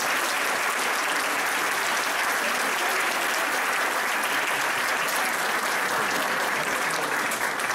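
Theatre audience applauding steadily, a dense wash of many hands clapping for performers taking their bow.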